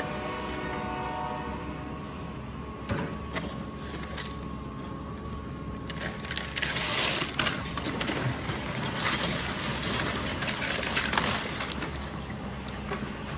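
Building demolition by an excavator: a machine's engine hums steadily, then from about halfway through comes a run of crashes and clattering debris. A thin steady tone sounds in the background during the first half.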